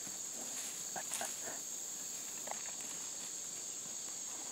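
Steady high-pitched insect chorus of crickets or katydids, with brief rustles and crackles of footsteps through brush and dry leaves about a second in and again in the middle.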